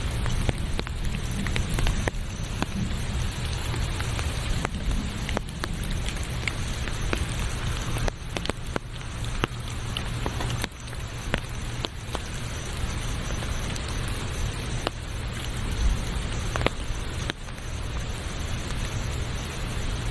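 Steady rain falling, with many separate sharp drop ticks over a continuous hiss and a low rumble.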